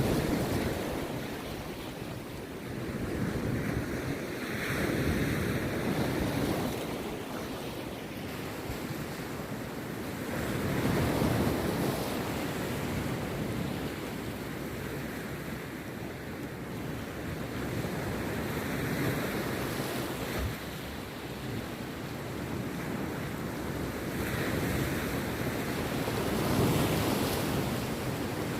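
Rough sea surf breaking on a beach, the waves swelling and washing in every several seconds, with wind on the microphone.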